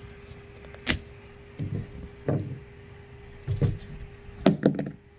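Basset hound puppy gnawing on a raw carrot: about five short crunches and knocks of the carrot against the wooden floor, the loudest cluster near the end, over a faint steady hum.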